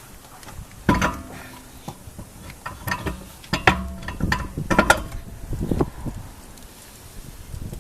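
Metallic clanks and knocks as a wheel is fitted onto a car's hub, with sharp ringing knocks about a second in and a cluster of them between three and five seconds in.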